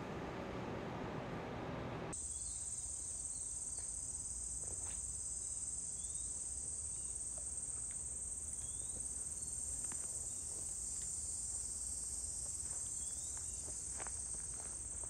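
A steady hiss cuts off about two seconds in and gives way to a steady, high-pitched chorus of summer insects. Faint short chirps and a few light ticks sound over the chorus.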